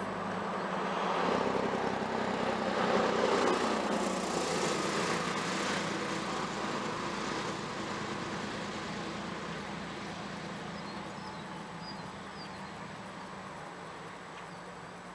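A motor vehicle's engine running at a steady pitch, growing louder over the first few seconds and then slowly fading away. A few faint bird chirps come near the end.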